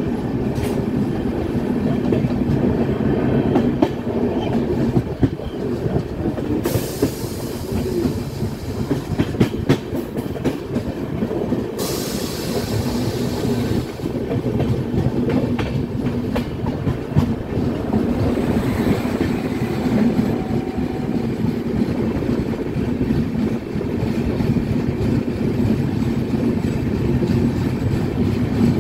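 Indian Railways passenger train running at speed, heard from the open doorway of a coach: a steady rumble of wheels on rail with clickety-clack over the rail joints. Two short spells of high hiss come through, about a quarter and nearly halfway in.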